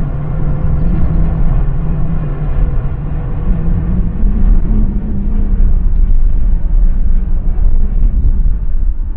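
Jet aircraft engines making a loud, steady rumble under a low hum, which rises slightly in pitch about four to five seconds in and then fades back.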